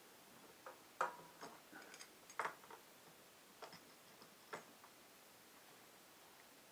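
Faint, scattered metal clicks and taps from a vice-grip-style oil filter wrench being handled and set on the motorcycle's oil filter, with about half a dozen light knocks spread over several seconds.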